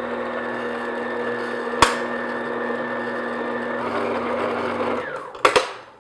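Electric stand mixer running at a steady speed, its beater working thick cake batter in a glass bowl, with one sharp knock about two seconds in. The motor switches off about five seconds in, followed by a few clicks as the mixer head is tilted up.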